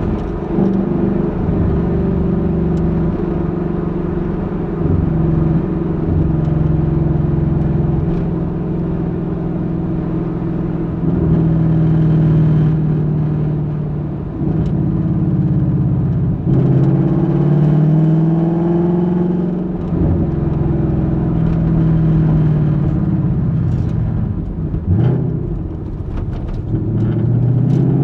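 2021 Ford Mustang GT's 5.0-litre V8 exhaust during a drive, its pitch rising under acceleration and falling back when the throttle eases, several times over. The exhaust sound is picked up from inside the trunk.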